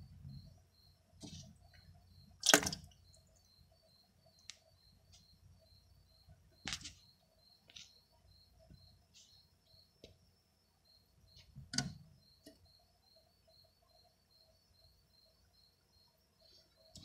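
A faint, steady high-pitched chirp pulsing about four or five times a second, with a lower tone pulsing along with it, broken by a few sharp clicks. The loudest click comes about two and a half seconds in, and others come near seven and twelve seconds.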